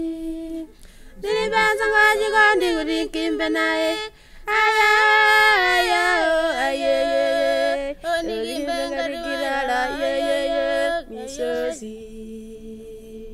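A woman singing as the soundtrack, in long sustained phrases with bending pitch and short breaks between them, ending on a held note near the end.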